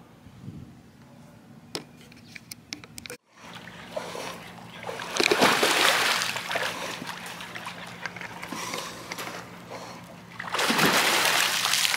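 Water splashing in a backyard swimming pool as a person swims, loud from about five seconds in and rising again near the end.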